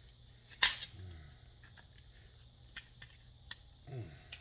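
A single sharp snap as an old light switch is pried apart with a screwdriver to free its brass terminal pieces, followed by a few light clicks of metal and plastic.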